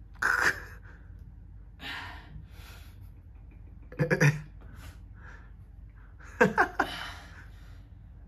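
A man's strained gasps, grunts and hard breaths under effort, in four short bursts about two seconds apart, the loudest two near the middle and toward the end.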